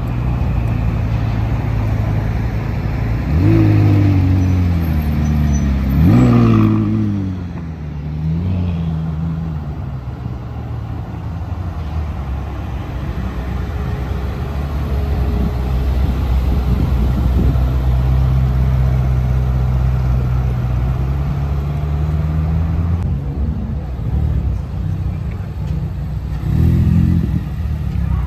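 Sports car engines at idle: two quick revs that rise and fall a few seconds in, then a steady engine note that climbs slowly, and short throttle blips near the end.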